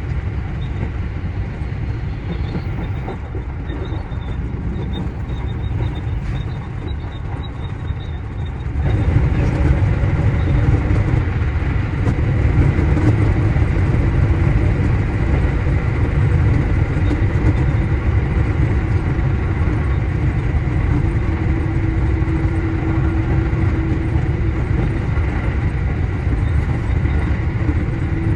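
JR Central 315 series electric train running, a steady rumble of wheels and motors heard on board. About nine seconds in it grows louder and a steady hum joins the rumble.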